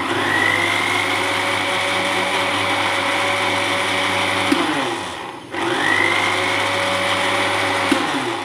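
Countertop blender motor blending yogurt with milk and sugar, a steady whine that rises as it spins up. It winds down a little past halfway, starts again about half a second later, and winds down again near the end.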